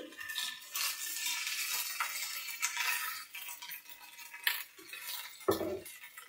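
Chopped onions and ginger-garlic paste frying in oil in a non-stick pan, with a wooden spatula stirring and scraping against the pan in quick strokes. There is a duller knock about five and a half seconds in.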